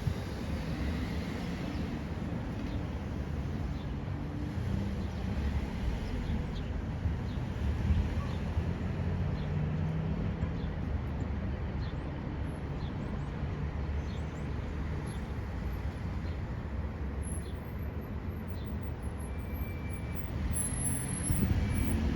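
Steady low rumble of vehicle traffic, with a faint engine hum running through it.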